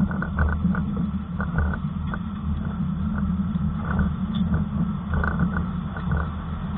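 A train of CC20x diesel locomotives rolling past close by: a steady heavy low rumble with frequent irregular knocks and clanks from the wheels and running gear on the track.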